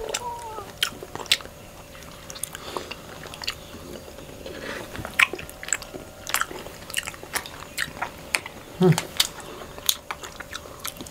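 Close-miked mouth sounds of eating honeycomb and popping boba: irregular sharp wet clicks and smacks as the chewing goes on.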